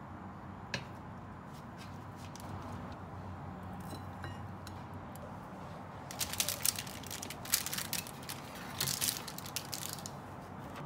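Household handling noises over a steady low room hum: a single sharp click about a second in, then from about six seconds a run of crackly rustling and small clicks.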